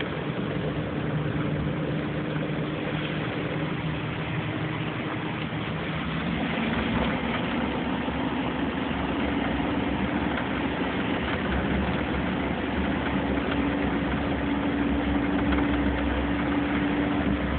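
Car engine and road noise heard from inside the cabin while driving in the rain: a steady engine hum with a hiss over it. The hum drops in pitch about six seconds in and rises back near the end, with a deeper rumble through the second half.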